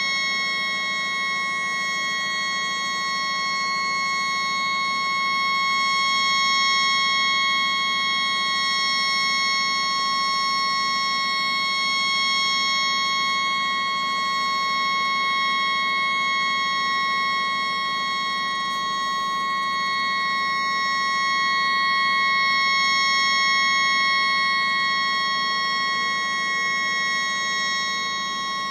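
A tugboat's malfunctioning horn stuck on, one steady unbroken high tone, sped up and raised in pitch so it sounds like a shrill alarm.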